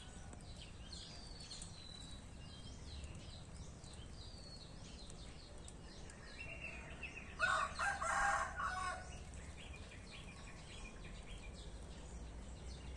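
A rooster crows once, about halfway through, over a steady background of small birds chirping.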